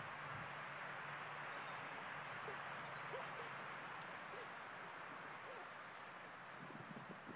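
Steady outdoor background hiss with a few faint high bird chirps about two to three seconds in.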